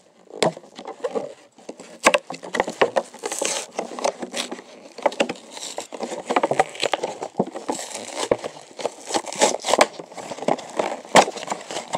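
A Monster Jam toy monster truck's cardboard-and-plastic blister pack being torn open by hand: irregular crinkling of the plastic, ripping of card and paper, and sharp clicks.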